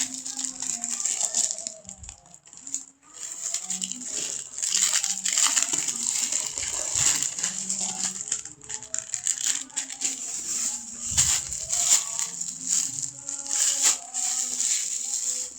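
Plastic packaging being handled and opened, crinkling and rustling in quick irregular bursts, with faint music underneath.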